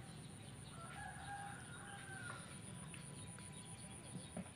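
A rooster crowing once, faintly: a single drawn-out call of about a second and a half, starting about a second in.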